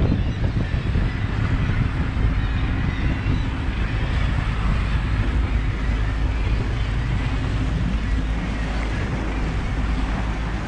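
Small motorboat under way: its outboard or inboard engine runs with a steady low drone, mixed with wind buffeting the microphone and water rushing past the hull.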